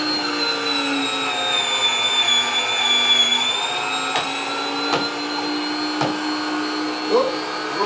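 Big Boss Swirlio frozen-fruit dessert maker's electric motor running with a steady whine while frozen fruit is pressed through it; the pitch sags slightly for a second or so about two seconds in, and there are a few light knocks.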